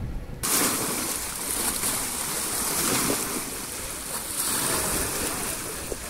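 Small sea waves washing and splashing against stepped concrete at the water's edge, a steady rushing wash that swells as each wave comes in. It starts abruptly about half a second in, after a brief low rumble.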